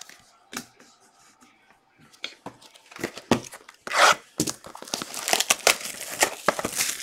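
Trading cards handled with a few light taps, then, about three seconds in, a long stretch of tearing and crinkling as Panini Chronicles football card packaging is ripped open.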